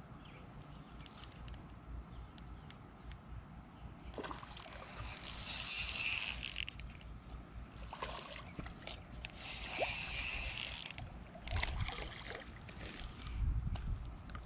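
Spinning reel being cranked in spells of a second or two, its gears giving a whirring, clicking sound.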